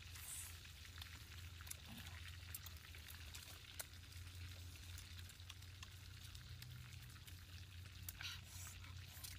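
Quiet eating sounds: faint scattered clicks and smacks of people chewing grilled fish picked apart with their fingers, over a low steady hum.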